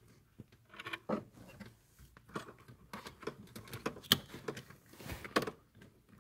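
Scattered small clicks, taps and scrapes of a small screwdriver and fingers working a mounting screw out of a car's blower motor resistor, with hands rustling against wiring and plastic trim.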